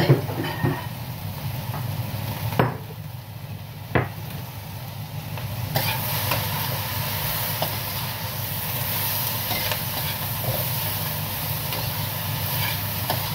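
Sliced vegetables stir-frying in a wok over a gas flame: a spatula knocking and scraping against the wok amid sizzling, over a steady low hum. Sharp knocks come near the start and about three and four seconds in, and the sizzling grows fuller from about six seconds in.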